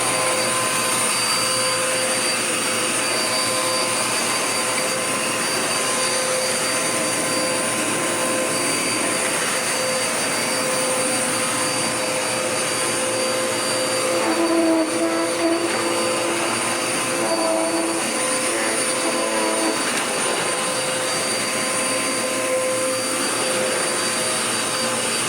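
Dirt Devil Power Max vacuum cleaner running steadily, a motor rush with a high whine. Midway, extra wavering tones and a few brief louder bumps come in for about six seconds.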